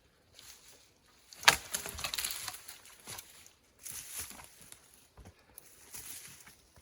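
A sharp woody crack, then about a second of crackling and rustling brush, among scattered snaps and rustles.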